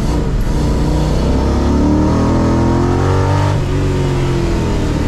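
Audi V8 engine of a Porsche Boxster engine-swap track car, heard from inside the cabin under load. The revs climb steadily for a while, then drop sharply about three and a half seconds in, as at a gear change, and the engine pulls on.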